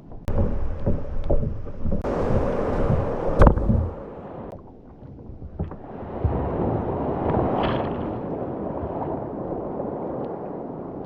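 Water rushing and splashing around a sea kayak in ocean surf. It is loud for the first few seconds with a few knocks, eases off briefly, then settles into a steady rush of water.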